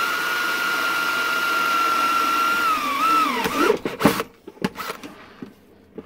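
Cordless drill with a large bit boring a hole through a plastic box lid: a steady motor whine that dips and winds down about three seconds in. A few sharp knocks and clatters follow.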